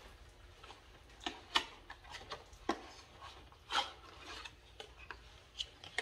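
A new brass pressure relief valve being unpacked by hand from its small box and plastic bag: scattered light rustles and clicks of packaging and handling.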